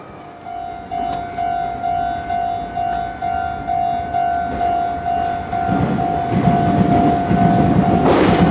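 Railway level-crossing warning bell starting to ring about half a second in, a steady ding repeating a little over twice a second. A Meitetsu Toyokawa Line train's running noise grows louder from about six seconds in and becomes loud near the end as the train reaches the crossing.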